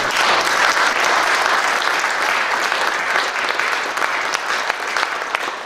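Audience applauding, a dense patter of many hands clapping.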